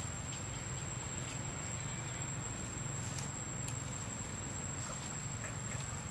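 A steady, high-pitched insect trill that never breaks, over a low background hum, with a few faint short ticks.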